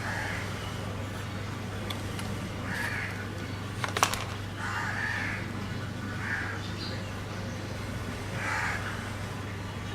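Crows cawing several times in the background, with a sharp click about four seconds in and a steady low hum underneath.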